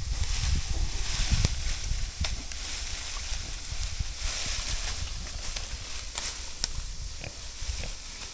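A pregnant sow gathering leafy branches for her nest: the leaves rustle as she mouths and drags them, with pig grunting and a few sharp cracks. Nest-building like this is the sign she is within hours of farrowing.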